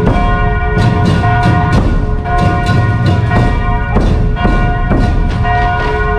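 Church bells pealing: many overlapping strikes and long ringing tones, over steady low drumming.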